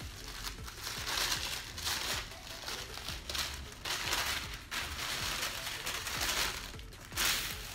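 Wrapping paper crinkling and rustling in repeated bursts as it is unfolded from around a small box.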